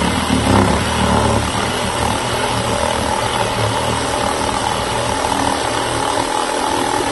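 Black & Decker cordless reciprocating saw running steadily as its blade cuts through a thick tree branch, with a heavier low rattle that eases off about a second and a half in.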